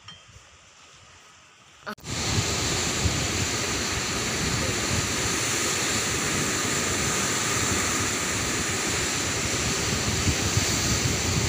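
Steady rushing of foaming white water churning through a concrete channel, starting suddenly about two seconds in.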